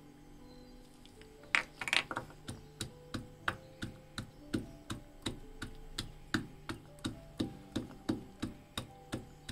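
Wooden pestle pounding garlic cloves in a small clay mortar: a steady run of sharp knocks, about three a second, starting about a second and a half in.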